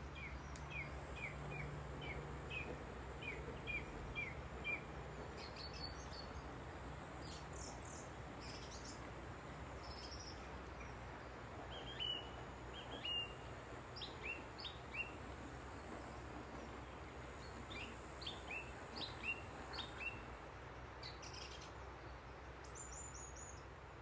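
Songbirds calling: a run of about ten quick, falling chirps, roughly two a second, then scattered calls from several birds in short clusters, over a faint low hum.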